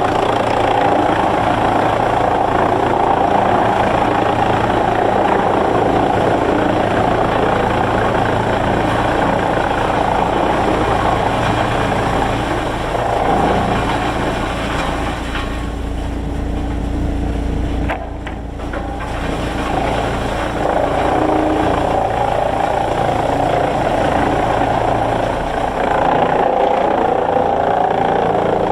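Heavy machinery engine running steadily, a dense mechanical din with a low rumble underneath. From about 15 seconds in, the higher part of the noise drops away for a few seconds, leaving mostly the low engine rumble, then comes back.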